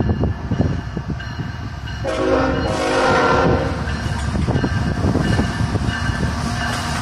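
The horn of a CSX freight train's lead diesel locomotive sounds one long blast, about two seconds in, as the train approaches. Under it the train runs with a low rumble, and gusty wind buffets the microphone.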